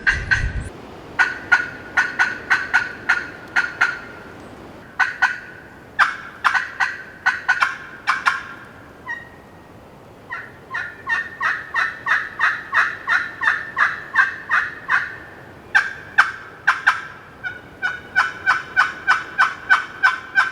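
Turkey yelping: long runs of sharp, evenly spaced yelp notes, about four or five a second, each run lasting a few seconds with short breaks between.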